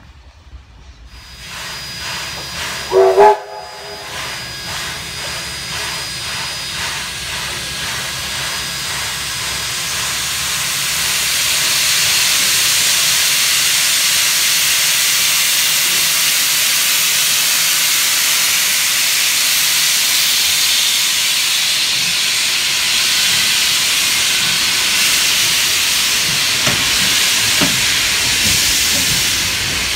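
Steam locomotive: a short blast on its steam whistle about three seconds in, then a steady hiss of steam that grows louder as the train moves off, with a few knocks near the end.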